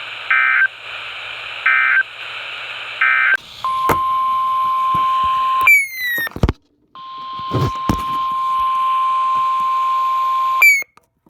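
Weather radio broadcast over static: three short bursts of EAS/SAME digital data tones, the end-of-message code that closes the warning. These are followed by a steady tone near 1 kHz that breaks off twice with a short falling chirp and a moment of dropout, then resumes.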